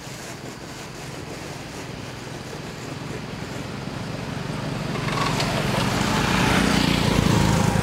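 A road vehicle approaching and passing close by: engine hum and tyre noise growing louder over the last few seconds, loudest just before the end.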